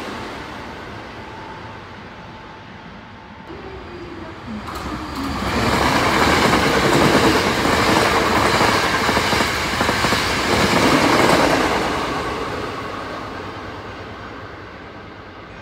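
Hankyu electric train passing through the station at speed without stopping. The sound of the previous train fades over the first couple of seconds. The next train then comes in, loudest from about six to twelve seconds in, and fades away near the end.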